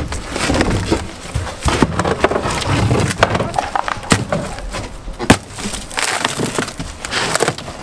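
Rotten, waterlogged plywood and stringer wood in a boat hull being broken out, cracking and splintering under repeated hits and prying, with sharp knocks all through.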